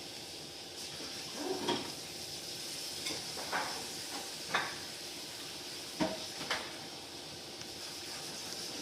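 A handful of short light clinks and knocks, about six spread over a few seconds, over a steady background hiss.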